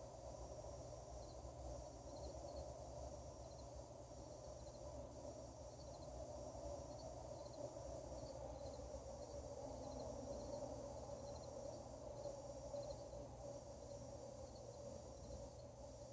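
Crickets chirping in short, repeated pulses over a steady, unidentified hum that is the strange night-time noise being recorded.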